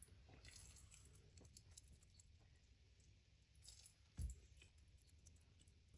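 Near silence with faint soft handling clicks as a gloved hand scoops wet grated-turnip mixture from a plastic bowl and sets small balls on a plate. One short, soft thud about four seconds in.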